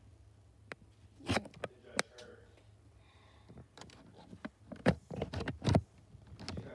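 Hard plastic clicks and knocks from a toy Nerf revolver blaster being handled. A few are scattered early, then a denser run of louder knocks comes in the second half.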